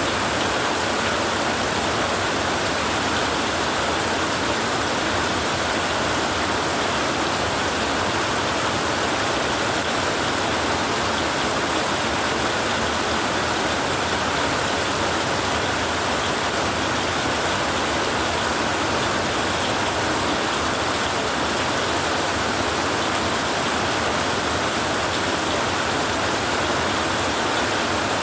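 Heavy rain falling on a tin roof, a dense steady patter that does not let up.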